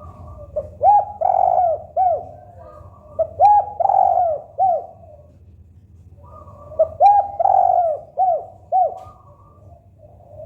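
Spotted dove (tekukur) cooing in three phrases, each a string of rounded, arching coos.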